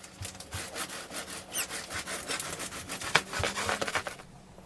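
A rapid run of scratching, rasping strokes on a rough surface, with a louder stroke about three seconds in.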